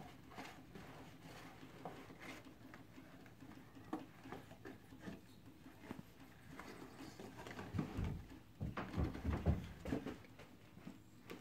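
Faint rustling and light tapping as small paper gift bags on a string are handled and lowered to a carpeted floor, with a few louder thumps about eight to ten seconds in.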